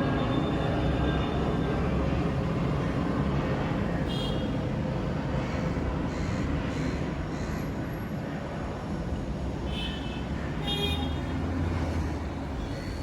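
Jet airliner's engines rumbling loud and steady as it lands, with a thin whine in the first few seconds; the noise fades slowly as the aircraft moves away.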